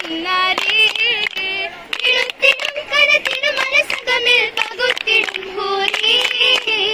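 Girls singing an oppana song together, a wavering, ornamented melody, with rhythmic hand clapping.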